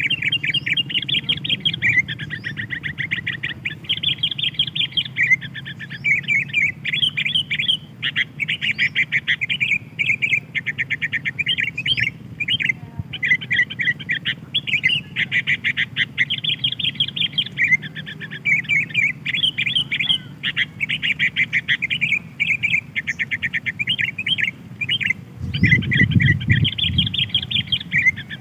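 Sooty-headed bulbuls chirping almost without pause in rapid, overlapping trains of short notes. A low rumble comes in near the end.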